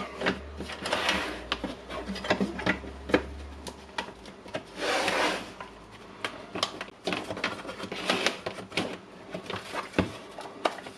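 Plastic charger housing and power cord being handled: scattered clicks and knocks with two longer rubbing scrapes, as the knotted cord is pushed into the housing to test the fit.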